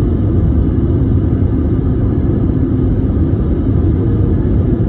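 Steady, loud low rumble of an Airbus A320 airliner in flight, engine and airflow noise heard inside the passenger cabin during the approach to landing.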